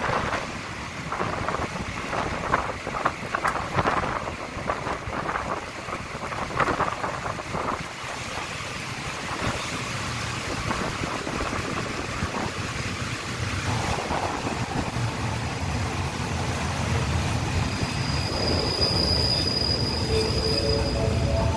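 Passenger train running along the rails, heard from an open carriage window: rattling clicks from the wheels and carriage at first, then a steadier running noise that grows louder with a low rumble. A thin, high wheel squeal comes in near the end.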